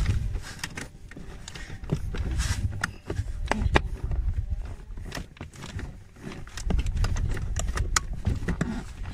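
Irregular clicks, taps and rustling of a hand working among plastic trim and wiring behind a car's dashboard, feeling for the heater blower's final stage resistor.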